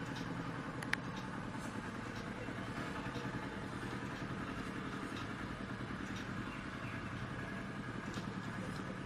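Steady low mechanical hum in the background, with a single sharp click about a second in and a few faint ticks.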